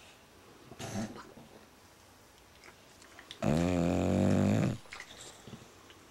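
Bulldog snoring: a short snort about a second in, then one long, loud, pitched snore lasting about a second and a half in the middle.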